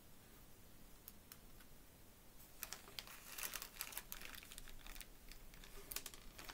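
Quiet clicking and rattling of small plastic Perler beads and the crinkle of a plastic zip-top bag as fingers rummage through the beads, a dense patch of clicks starting about two and a half seconds in and a few sharper clicks near the end.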